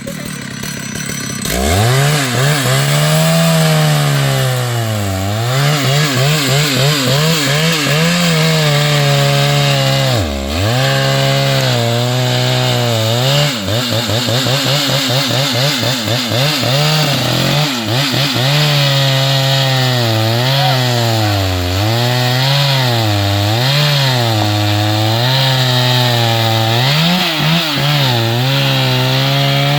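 Two-stroke chainsaw cutting into wood, starting about a second and a half in. Its engine pitch keeps rising and sagging as the chain loads and frees in the cut, with short sharp drops twice near the middle.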